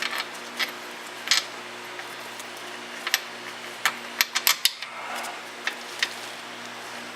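Sharp metallic clinks and taps of hand tools and metal parts, with a few scattered ones and then a quick run of about six in the middle. A steady low electrical hum runs underneath.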